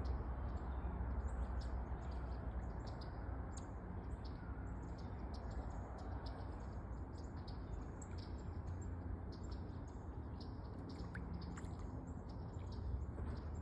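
Small birds chirping: many short, high, quick calls in rapid succession over a steady low rumble.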